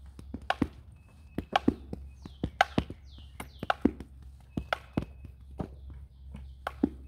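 Softball bunting practice: a quick series of sharp taps and knocks as tossed softballs meet the bat and bounce on the turf.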